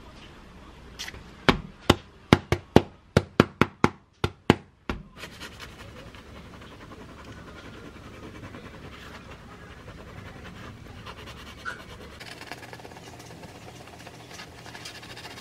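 About ten sharp taps in quick succession, a wooden spoon knocking against the rim of a glass mug to clear off egg mayo. After that comes a soft, steady rasping as a knife saws back and forth through a bread roll on a wooden cutting board.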